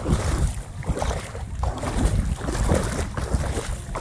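Wind buffeting the microphone in a steady low rumble, with kayak paddle blades dipping and splashing in the water at a steady stroke rhythm.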